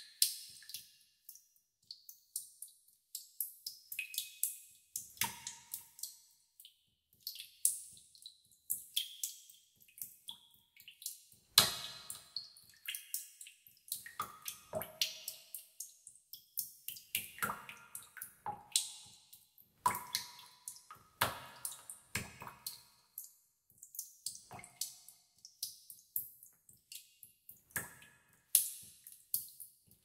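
Water drops falling into water in a tub: irregular plinks, a few each second, at several different pitches, each with a short ringing tail.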